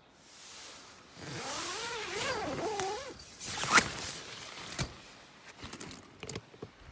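A zipper pulled open in one long rasping run of about two seconds, its pitch wavering with the speed of the pull, followed by a sharp click and a few lighter clicks and knocks.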